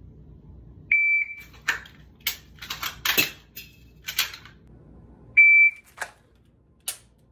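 Two steady high beeps from a shot timer, about four seconds apart, each followed by a run of sharp clicks and rattles as a CZ P-10 C pistol is drawn from a belt holster and dry-fired.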